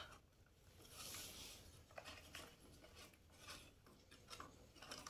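Faint rustling of a cardboard box being opened by hand, with a soft scrape about a second in and a few light clicks and scrapes as a foil-wrapped chocolate egg is pulled out.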